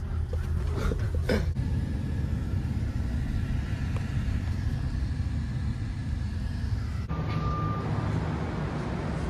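Steady low rumble of road and engine noise inside a minivan cabin as it drives. About seven seconds in it cuts abruptly to a different, steadier hum with a brief high tone.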